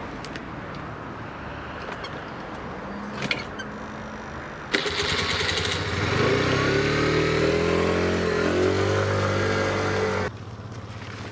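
Small motor scooter engine running, with a few light clicks. About five seconds in it gets suddenly louder and rises in pitch as the scooter accelerates away, then cuts off sharply near the end.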